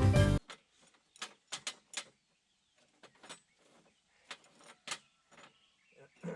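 Background music that cuts off shortly in, then scattered light clicks and taps of hand work on small engine parts and tools, at irregular intervals.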